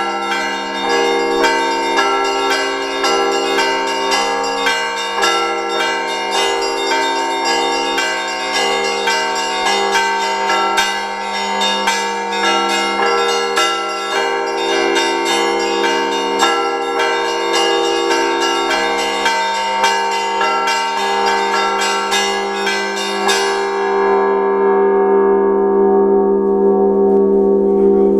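Russian Orthodox church bells rung by hand in a peal after the Sunday Liturgy: many small bells struck rapidly over deeper, sustained bell tones. About three-quarters of the way through, the small bells stop and the deep bells ring on, humming.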